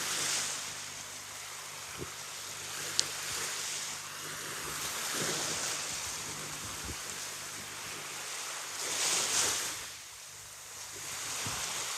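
Ocean waves washing onto a beach, the hiss of surf swelling and fading three times, with some wind on the microphone.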